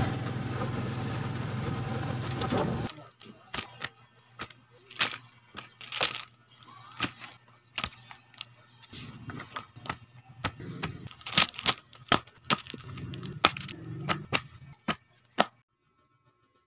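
Clear plastic wrapping on spiral notebooks crackling and crinkling as they are handled and shuffled: sharp, irregular crackles. This follows about three seconds of steady street noise with a low hum, and the crackling stops about a second before the end.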